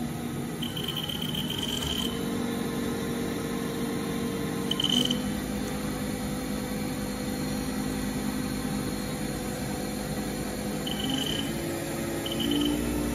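Haas VF-0E CNC mill spindle and its 20-horsepower vector-drive motor running at around 3,000–4,000 rpm, a steady hum whose pitch steps a few times as the speed is changed. This is the RPM range where it doesn't sound so good: the spindle hunts and the RPM bounces, which the owner puts down to a very loose spindle encoder belt.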